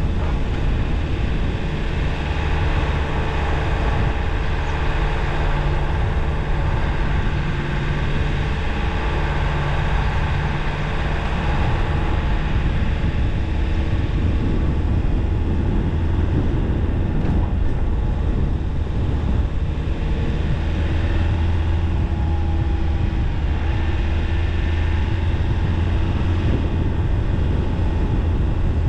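Car driving along a winding road: a steady low engine hum mixed with tyre noise on the asphalt, the engine note shifting a little in pitch.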